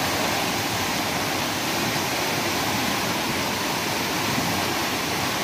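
A river in flood: muddy floodwater rushing in a steady, loud torrent.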